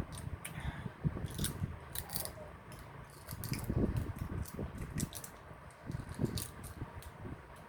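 Close-up eating sounds of balut: irregular small clicks and crackles, like eggshell and utensils being handled, over low, uneven mouth and handling noises.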